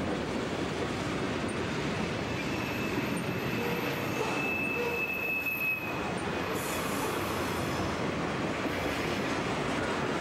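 Freight train cars rolling past at close range, a steady rolling noise of wheels on rail. A thin high wheel squeal rises over it from about two seconds in and fades out near the middle.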